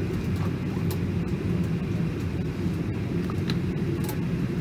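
Steady low rumble of an airliner cabin, inside a Boeing 737-800 parked before pushback, with a few faint clicks.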